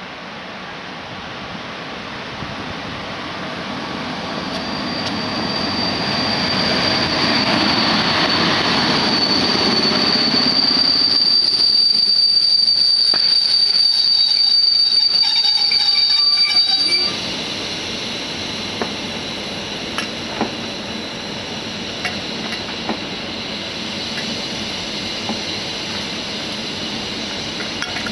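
Passenger train hauled by an EP07 electric locomotive passing through: the rumble swells over the first several seconds, and a steady high wheel squeal rings over it until the noise drops off abruptly about two-thirds of the way through. A lower rumble with scattered clicks follows.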